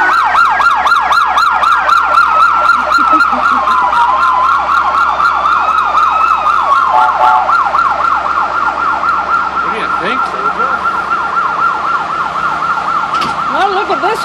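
Several fire truck sirens sounding at once: a fast yelp over a steady high tone, with a slower wail rising and falling through the middle. The yelp grows slightly fainter, and slower wail sweeps come in near the end.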